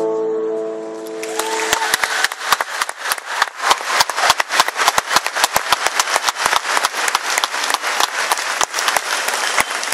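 A held chord of music fades out in the first second or so, then a large crowd breaks into dense applause.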